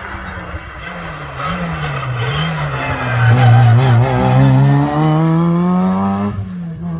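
Opel Kadett rally car's four-cylinder engine under hard throttle as it climbs towards the listener and passes close by, the revs wavering at first, then rising steadily in one gear for about two seconds. The revs drop sharply near the end at a gear change.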